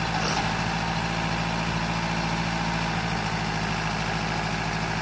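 Boom truck's engine running steadily at a constant speed, powering the hydraulic crane while its boom is raised.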